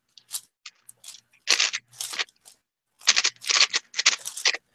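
Plastic speed cube being turned by hand: runs of quick clacking turns, a few light clicks at first, then a short spurt about a second and a half in and a longer one from about three seconds to near the end.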